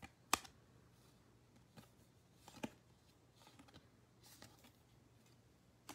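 Trading cards handled by hand: one sharp card click just after the start, then a few soft slides and rustles of card stock as the cards are flipped through.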